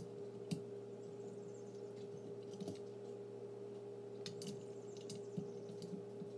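Faint, scattered clicks of small Lego plastic parts being handled as minifigures are pushed into a toy vehicle's seats, over a steady hum.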